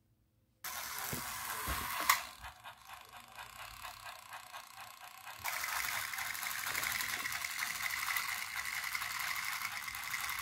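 Battery-powered Thomas & Friends toy train engines running on plastic track: a buzzing motor and gear whirr that starts suddenly, with a sharp click about two seconds in. From about five and a half seconds it gets louder, with a steady whine on top.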